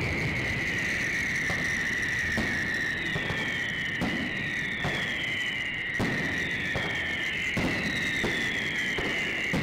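Fireworks display: irregular bangs and pops of low shells and ground effects, about one a second. Under them runs a continuous high whistling tone, with several shorter whistles falling in pitch.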